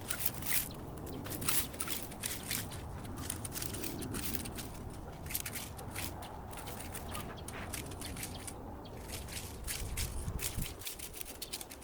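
Gardening work in soil and mulch: an irregular run of crunching, scraping clicks over a low rumble.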